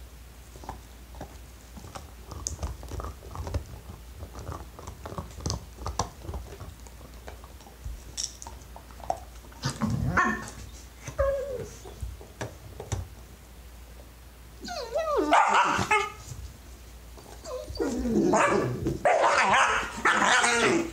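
Two puppies playing tug-of-war over a chew toy: soft chewing and scuffling first, then loud yappy barking and yipping about halfway through and again over the last few seconds.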